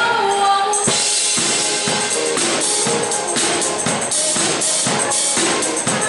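Live pop song played by a band with a woman singing. A steady, driving drum beat with sharp high percussion hits comes in about a second in.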